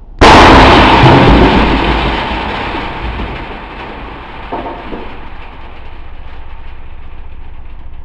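A 12-gauge birdshot shell bursting inside a running microwave oven, played back slowed down: a sudden loud bang a fraction of a second in trails off into a long, slowly fading rumble over several seconds, with a fainter second pop about four and a half seconds in. A steady low hum runs underneath throughout.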